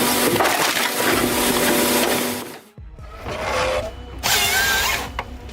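A firewood processor's saw cutting through a log, a loud dense whine, cutting off suddenly about two and a half seconds in; after it comes quieter machine sound with a brief wavering squeal, over background music.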